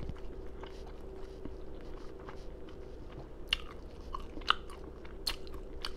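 Close-miked chewing of fried food with wet open-mouth smacking, several sharper lip smacks in the second half.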